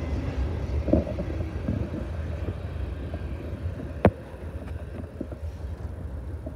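Freight train's tank cars and covered hopper rolling past, a steady low rumble of wheels on rail, with one sharp click about four seconds in.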